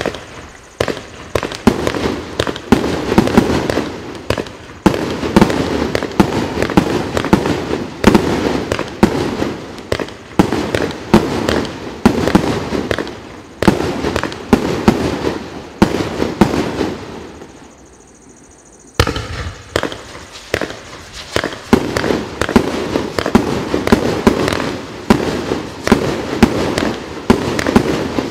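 Pangu Fireworks 'Colorful City' fireworks cake firing shot after shot in quick succession: sharp launch bangs and bursting pops over a constant crackling rush. It quietens briefly about two-thirds of the way through, then keeps firing.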